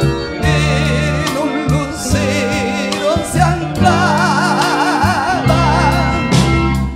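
A live band playing a slow romantic ballad, with a steady bass line under held chords. From about halfway through, a lead melody with a wide vibrato comes in over the top.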